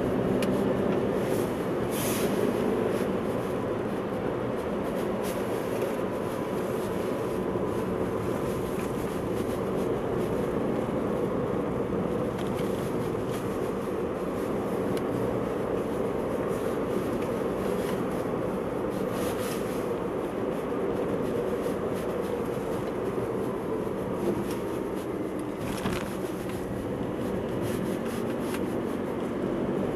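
Steady road and engine noise of a car driving along a paved street, heard from inside the cabin. A few faint clicks are heard now and then.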